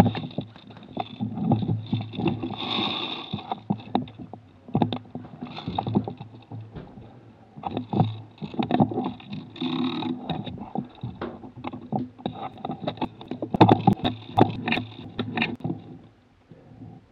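Irregular knocks and rustling: handling noise on a camera mounted on an airsoft gun's rail as the gun is carried and moved, with a busier run of knocks about two-thirds of the way through that dies away near the end.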